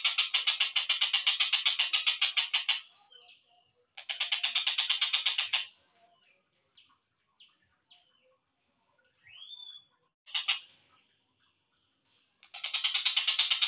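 Slowed-down recording of a tengkek buto kingfisher's rattling call: a fast, harsh pulsing trill that stops about three seconds in, returns briefly around four to five seconds, and starts again near the end. Faint chirps and one rising whistle fall in the gap.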